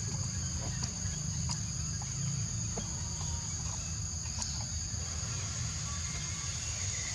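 Steady high-pitched drone of insects, such as cicadas or crickets, over a low rumble, with a few faint clicks.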